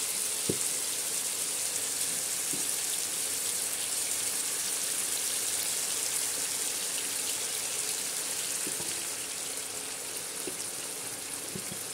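Marinated chicken pieces sizzling in hot oil in a pan on a high flame: a steady frying hiss that eases slightly near the end, with a few faint taps as pieces are set down in the pan.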